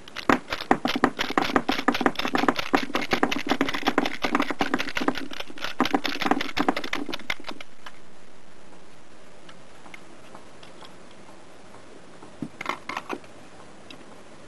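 7.62 mm cartridges being pushed one after another out of an AK-47 magazine with a LULA unloader, clicking and clattering as they drop onto a table: a rapid run of sharp clicks for about seven and a half seconds. A few more clicks near the end.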